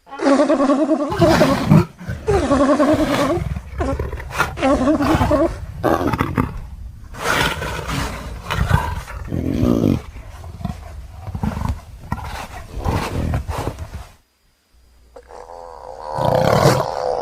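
Designed creature calls for the extinct swan-necked seal Acrophoca: three pitched, wavering calls of about a second and a half each, then a run of rougher, shorter calls. After a brief silence near the end, another call begins.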